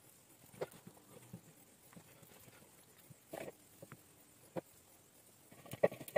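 Hands packing minced liver-and-chicken stuffing into raw chicken skin on a wooden cutting board: soft, irregular pats and taps, a few spread out and a small cluster near the end.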